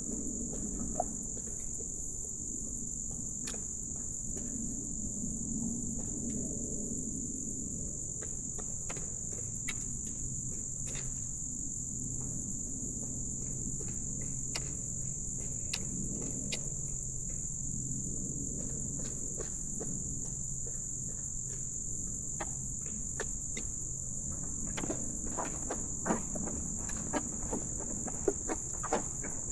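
Evening insect chorus, a steady high-pitched drone that does not let up. Scattered sharp clicks and knocks come through it, growing more frequent near the end.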